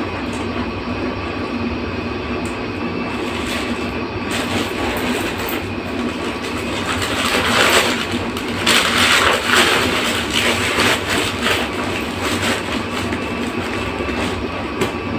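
Clear plastic wrapping crinkling and rustling in irregular handfuls as a handbag is unwrapped, loudest about halfway through, over a steady low background hum.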